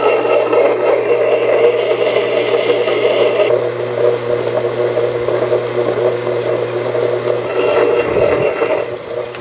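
Belt-driven wet grinder running steadily with a constant motor hum while the steel axe bit is pressed against the turning stone, giving a gritty grinding sound. The grinding drops away about a third of the way in as the head is lifted off the wheel, and comes back near the end when the bit is set on the stone again.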